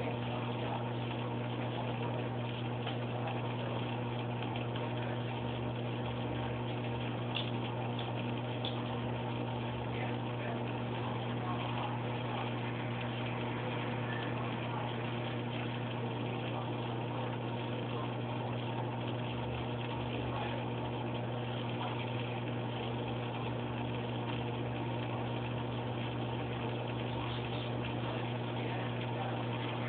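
Aquarium pump humming steadily, a constant low mechanical drone with an even hiss over it.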